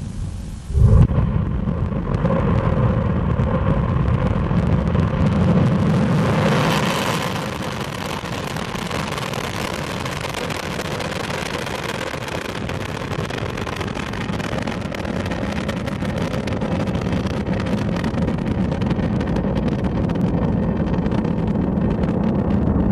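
Proton-M rocket's first-stage engines igniting with a sudden loud onset about a second in, then a steady, deep rumbling roar as the rocket lifts off and climbs.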